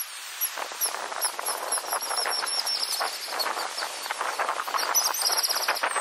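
A large flock of seagulls calling, many cries overlapping, with rapid high-pitched chirps repeating through much of it.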